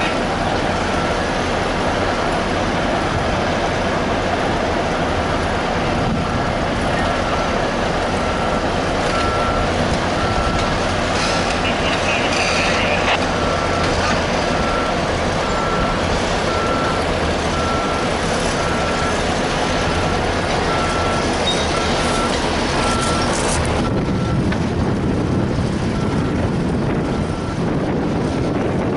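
Heavy earth-moving and rail-recovery machinery running steadily, with a backup alarm beeping about once a second. The beeping stops about five seconds before the end, and the machine noise eases at the same moment.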